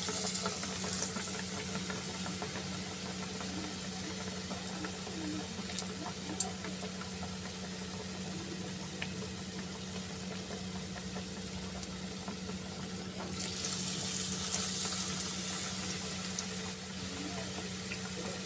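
Besan-battered bread pakoras deep-frying in hot oil in an iron kadhai: a steady sizzle and bubbling, with a steady low hum beneath. The sizzle swells louder for a couple of seconds about two-thirds of the way through, as a second piece goes into the oil.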